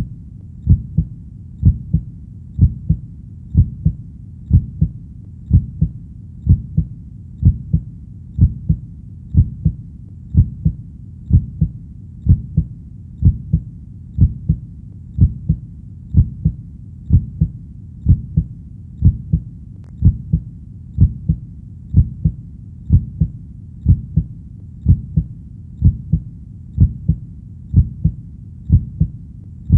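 A human heartbeat beats steadily at about one beat a second. Each beat is a low double thump (lub-dub) over a faint low background.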